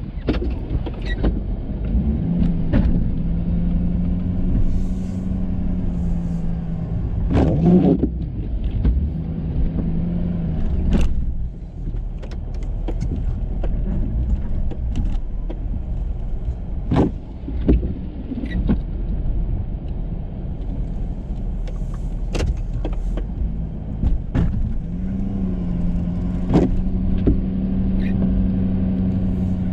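Ford F350 pickup running while plowing snow with a Boss plow, with scattered sharp knocks and clunks. A steady hum comes in twice for several seconds at a time.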